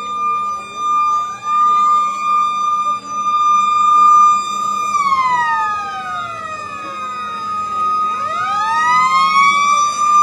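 A siren wailing: it holds a steady high tone, then about five seconds in slides slowly down in pitch and climbs back up near the end.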